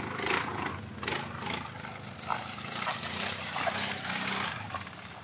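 Quad bike (ATV) engines running, louder in the first half and dropping away near the end.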